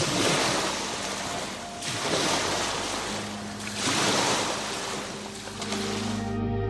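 Ocean surf, waves washing in repeated swells about every two seconds over a soft music bed with low held notes. Near the end the surf sound cuts off, leaving gentle ambient music.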